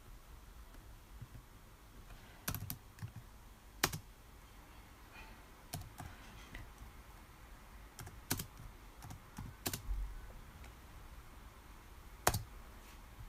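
Computer keyboard being typed on: faint, scattered keystrokes in short irregular runs with pauses between them.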